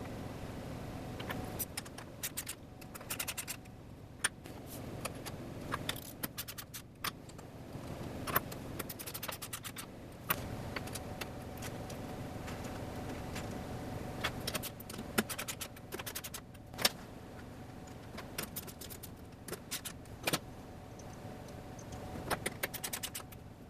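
Metal clamps and hand tools clinking and clicking irregularly as a fixture is clamped down to a CNC router table, over a faint steady hum.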